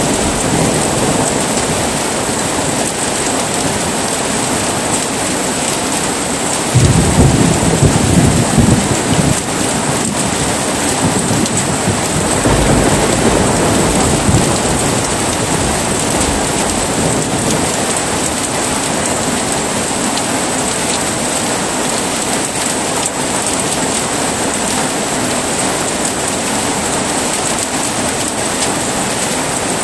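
Heavy rain falling steadily. About seven seconds in, a loud, sudden low rumble of thunder lasts a couple of seconds, followed by a weaker rumble a few seconds later.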